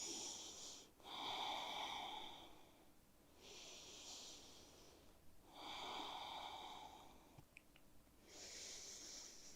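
A person taking slow, deep breaths, alternately in and out, five breaths in all: steady breathing while holding a yoga pose.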